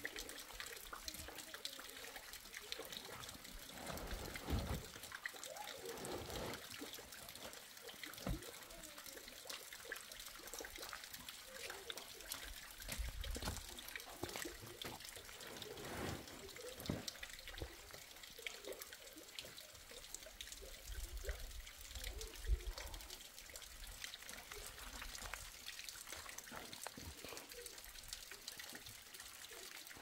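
Water trickling and dripping steadily, with a few low rumbles around the middle and in the second half.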